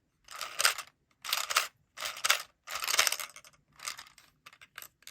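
Mini plastic gumball machine being cranked: four or five separate turns of the knob, each a grinding rattle, then a run of light clicks near the end as the mechanism settles and the gumball drops.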